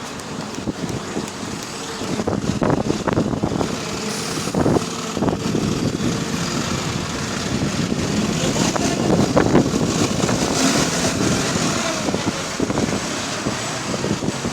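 Bus engine running with a weird groaning noise, which the recordist puts down to something vibrating at the engine. A thin steady tone sounds through the first few seconds, and the noise grows louder and brighter about two-thirds of the way in.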